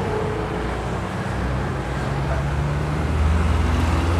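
Road traffic: a steady low vehicle engine rumble that grows louder in the last second or so.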